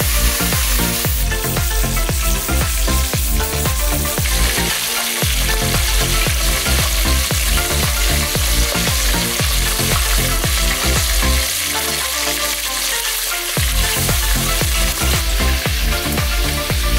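Whole fish sizzling steadily as they shallow-fry in hot oil in a wok, with a fork turning them now and then. Background music with a steady bass beat plays underneath.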